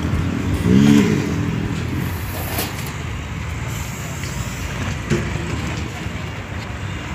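Road traffic: trucks and cars passing, a steady low rumble, with a brief rising-and-falling pitched tone about a second in.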